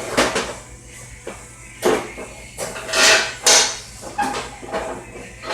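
Metal clunks, knocks and scrapes of lawn mower parts being handled and fitted into place, several separate hits, the loudest about three seconds in.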